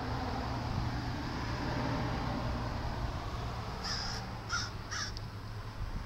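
Three short, harsh bird calls in quick succession, over a steady low hum.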